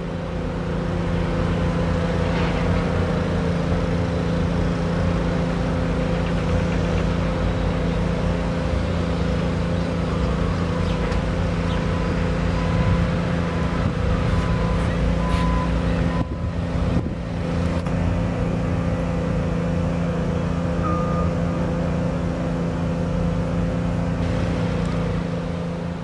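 A steady mechanical hum, with two low tones held at an even pitch over a low rumble.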